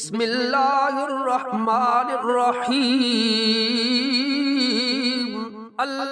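A solo voice singing one long, drawn-out melodic phrase with wavering ornaments. It breaks off shortly before the end.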